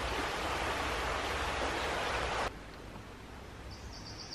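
Steady rushing of a small river's flowing water, cut off abruptly about two and a half seconds in. Faint ambience with a few high bird chirps follows near the end.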